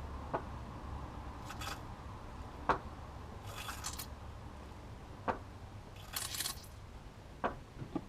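Sharp clicks about every two and a half seconds, with short hissy bursts between them, as a Toyota Celica's clutch hydraulics are bled with a one-way-valve bleed pipe. The bleeding is still bringing out air.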